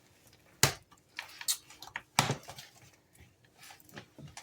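A few sharp clicks and knocks, the loudest about a second in and again about two seconds in, from kitchen utensils and a container as ice cream and crushed cookies are mixed.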